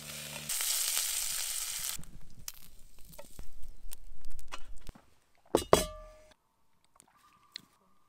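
Sausages sizzling in a frying pan, loudest in the first two seconds and then dying down, with clinks of metal tongs and pans and a sharper metallic clank about five and a half seconds in.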